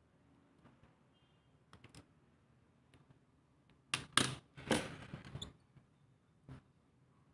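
Audio cable's rubber jacket being handled and scraped with a utility cutter during stripping: a few light clicks, then a short run of scraping, rubbing strokes about four seconds in.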